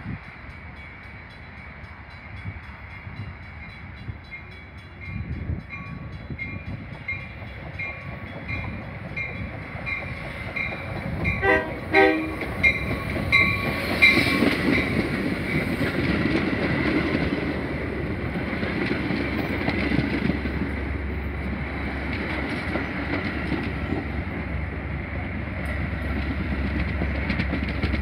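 Metra commuter train pulling into a station. A bell rings in an even rhythm as the train approaches, with a cluster of sharp clicks and strikes as the cab car reaches the platform. Then the stainless-steel bi-level cars roll past close by with a steady rumble and wheel noise, the deep rumble growing near the end.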